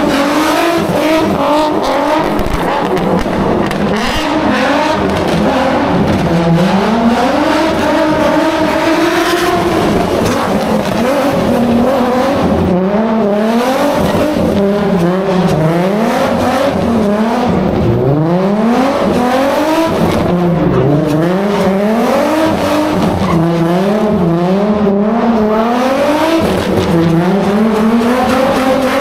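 A car's engine revving hard up and down again and again while it is drifted, with its tyres screeching.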